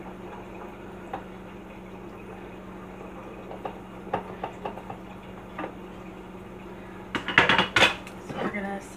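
Light scattered clinks and taps of things handled on a kitchen counter, then a short burst of louder knocks and clatter about seven seconds in, over a steady low hum.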